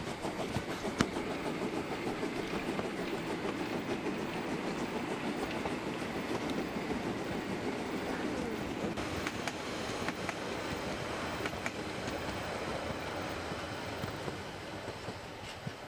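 H0-scale model train rolling along the track: a steady rattle of small wheels on the rails with scattered light clicks at the rail joints, easing off a little near the end.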